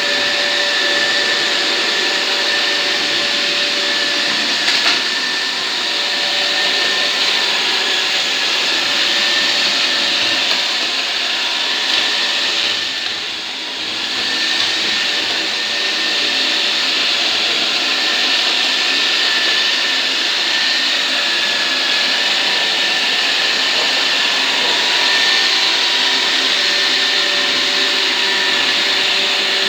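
Roomba robot vacuum running: a steady motor and suction whir with a constant whine, a brief click about five seconds in, and a short dip in level about halfway through.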